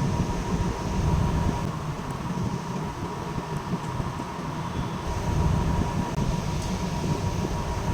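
Steady low mechanical rumble, rising and falling slightly, with a faint constant high tone.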